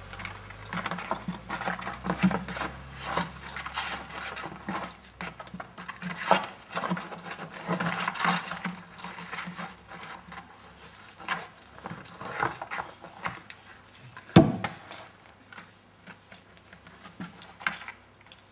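A black plastic bucket knocked, scraped and rolled over stony ground as a Landseer puppy pushes it about with its nose: a long run of irregular knocks and scrapes, with one sharper, louder knock about three-quarters of the way through.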